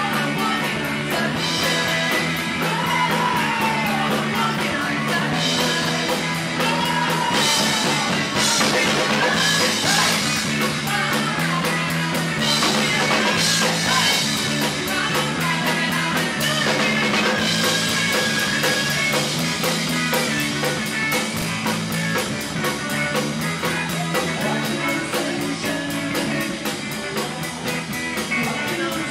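Live rock power trio playing a dance-pop cover: electric guitar, electric bass and a drum kit, with crash cymbals hit now and then.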